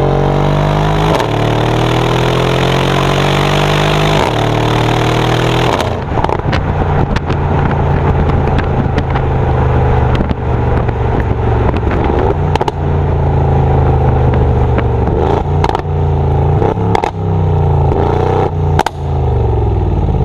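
Mercedes-AMG GLE 63 S Coupe's twin-turbo V8 accelerating hard, its pitch rising and stepping down at two upshifts. It then comes off the throttle with a string of sharp exhaust crackles and pops on the overrun as the engine note falls.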